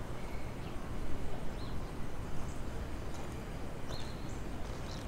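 Outdoor background of low, steady rumbling noise with a few short, high bird chirps scattered through it.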